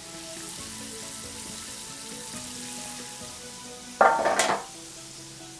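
Battered chicken frying in hot oil, sizzling steadily. About four seconds in, a metal baking tray is set down with a loud, rattling clatter lasting about half a second.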